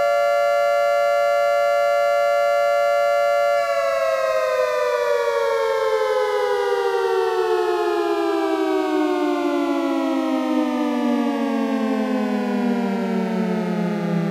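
Federal Signal 2T22 dual-tone outdoor warning siren sounding its noon blast: two notes held together as a steady chord, then, about three and a half seconds in, the rotors wind down and both pitches fall slowly and evenly.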